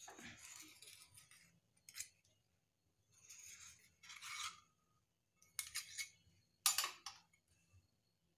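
A steel knife scraping around the inside of a small steel bowl to loosen a steamed idli, in several short strokes with light metal-on-metal clicks; the sharpest clink comes about two-thirds of the way through.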